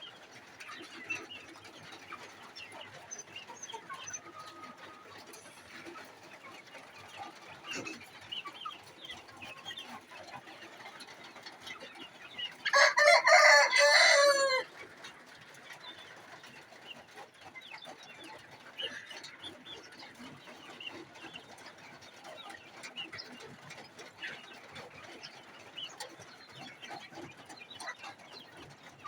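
Sasso chickens clucking and calling softly and scattered throughout, with a rooster crowing once, loud, for about two seconds, about halfway through.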